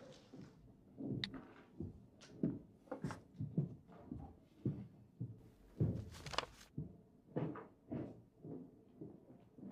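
Footsteps on a hard floor at a steady walking pace, about two steps a second, some with a sharp heel click.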